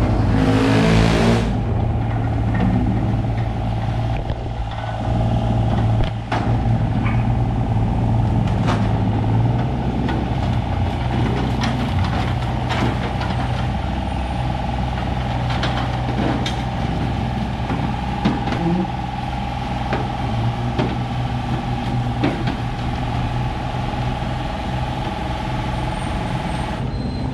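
Backhoe diesel engine running steadily while the machine is pulled out, with occasional metal clanks. A short burst of hiss comes about a second in.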